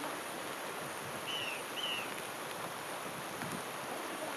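Steady rushing of fast-flowing floodwater, with two short high bird chirps close together a little over a second in.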